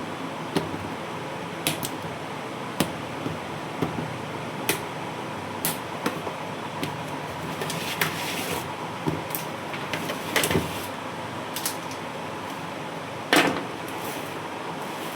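Packaging being handled for unboxing: scattered clicks, taps and short rustles over a steady background hum, with the loudest rustle near the end.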